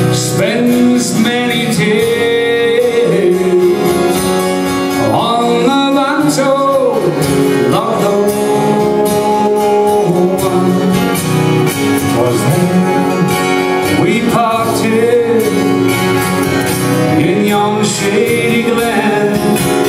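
Live Celtic folk band playing: acoustic guitars strumming with a piano accordion carrying the melody.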